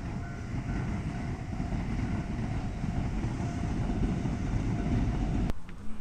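Railway train running past at a level crossing: a dense low rumble with a faint steady tone over it, cut off abruptly about five and a half seconds in.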